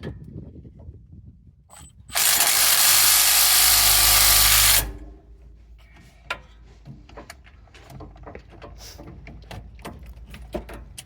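A power wrench runs in one steady burst of about two and a half seconds, tightening a bolt on the brake assembly. Light clicks and knocks of tools and parts follow.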